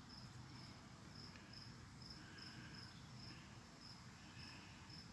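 Near silence with a faint cricket chirping steadily, about two short high chirps a second.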